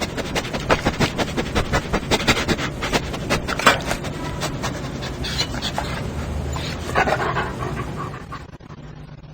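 A dog panting in quick, rapid breaths, fading out near the end.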